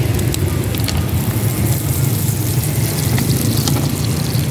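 Pentol balls frying in hot oil in a multi-cup metal mould pan, the oil sizzling with many small irregular crackles, over a steady low rumble.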